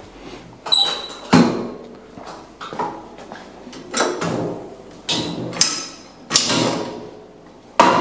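Pec-deck machine clanking: a series of sharp metal knocks, some ringing briefly, as its arms and weight stack are moved.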